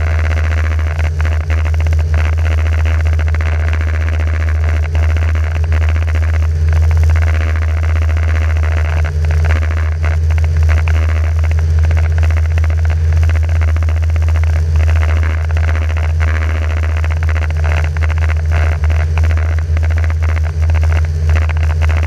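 Microlight trike engine and propeller running steadily in flight, with a constant low drone shot through by irregular rattling clicks: the noise of a broken exhaust baffle.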